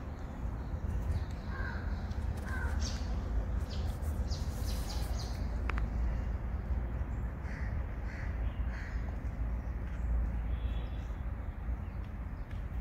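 Crows cawing in short calls: a pair about two seconds in, then three in a row about eight seconds in, over a steady low rumble.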